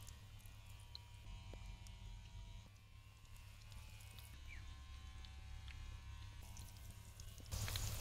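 Vadai batter frying in hot oil in an iron kadai, a faint sizzle with a few small clicks that turns into a louder, steady sizzle near the end.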